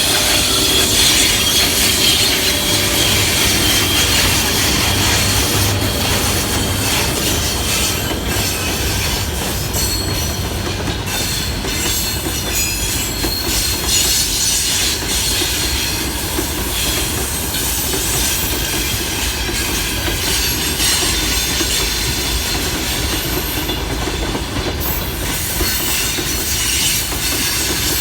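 Freight train hauled by a VL80S electric locomotive rolling past close by: a steady, loud rumble of wheels on the rails with a thin high-pitched wheel squeal running over it.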